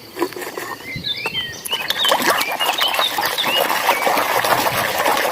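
Muddy plastic toys being washed: a busy patter of splashing water and scrubbing, growing fuller about a second in, with many short high squeaky chirps over it.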